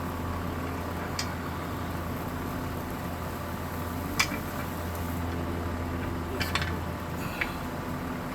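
A few sharp metallic clinks as the clutch pressure plate and its bolts are handled against the flywheel, the loudest about four seconds in, over a steady low hum.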